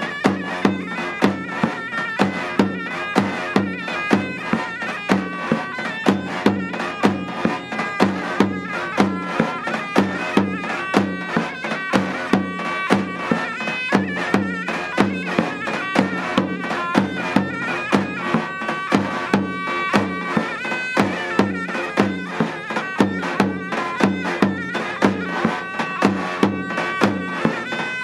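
Davul and zurna playing a Turkish folk tune live: the zurna's loud reedy melody carried over the davul's steady, evenly spaced beat.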